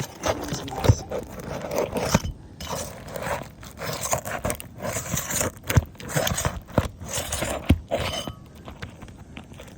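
Asphalt roof shingle being pried and scraped loose with a shingle removal tool: irregular scraping and grating, broken by a few sharp knocks.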